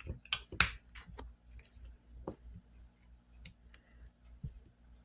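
Small metal parts of a Raven Arms P25 pistol clicking and tapping as it is handled during reassembly: a quick run of sharp clicks in the first second, then scattered lighter clicks.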